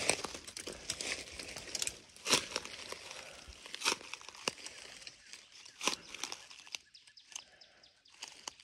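Slow footsteps through dry leaf litter and low vegetation: rustling and crunching of dead leaves, with scattered sharp crackles, thinning out near the end.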